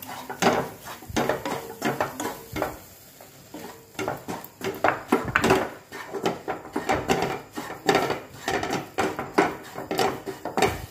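Wooden spatula scraping and knocking against a kadhai in many quick, irregular strokes as gram flour is stirred into a thick onion-tomato mixture without water. There is a brief lull about three seconds in.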